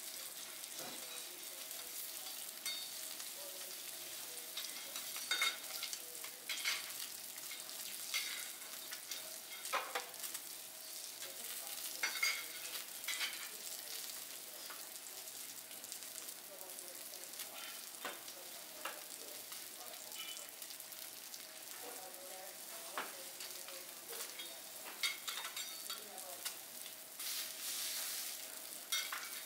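Food sizzling on a hot teppanyaki iron griddle, with frequent short clicks and taps of metal spatulas working on the plate.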